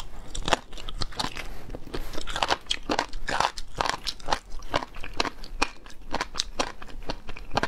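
A person crunching and chewing seasoned chicken bones with crunchy cartilage: many sharp, irregular cracks, close to the microphone.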